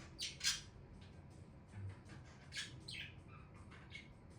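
Pet budgerigars chattering in short, scattered high chirps, about half a dozen quick calls.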